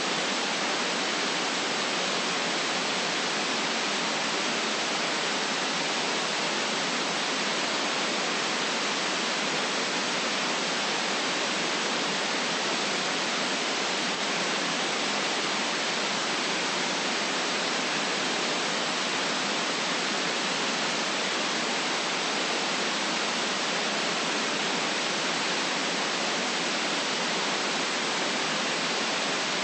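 Steady synthetic white noise: an even, unchanging hiss with no bass.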